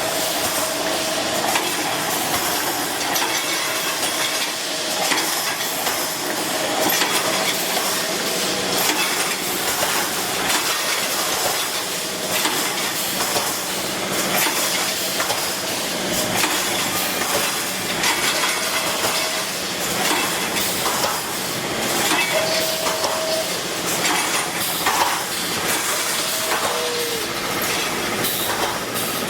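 Automatic brick force mesh welding machine running: a steady hiss with irregular clattering and clicks, and a few brief high-pitched whines.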